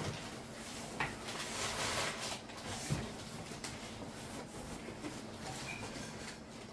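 Rustling and handling of packaging material, with a couple of small knocks about one and three seconds in.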